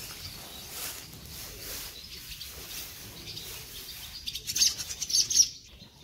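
Small birds chirping, with a louder cluster of sharp, high chirps about four seconds in.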